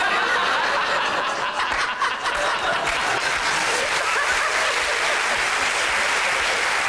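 Studio audience laughing and applauding after a punchline. A dense, steady wash of clapping fills out about three seconds in.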